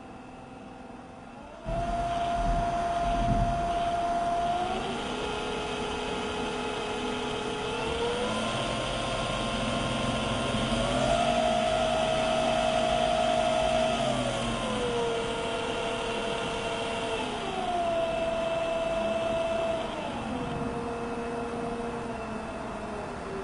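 Permanent-magnet DC motor on a PWM speed controller whining as its speed is set by hand. The whine jumps louder about two seconds in, then climbs in pitch in several steps and falls back down in steps.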